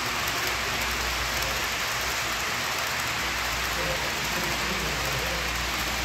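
Model train running on a layout: a steady hissing rumble of wheels on track. Faint murmur of voices behind it.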